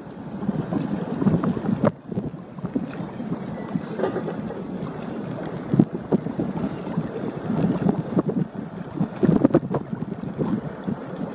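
Wind buffeting the microphone in irregular gusts, a rumbling noise with a few brief knocks.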